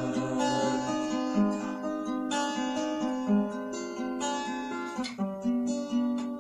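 Acoustic guitar playing an instrumental interlude between sung verses: a steady picked accompaniment of repeated notes, with a fuller strum about two seconds in and again about five seconds in.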